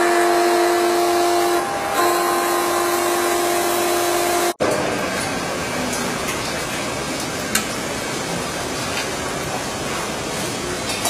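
MBJ99 marble and granite edge polishing machine running: a steady hum of several tones from its motors, broken off abruptly about four and a half seconds in. A steady, noisy running sound without tones follows, with a single click near the middle.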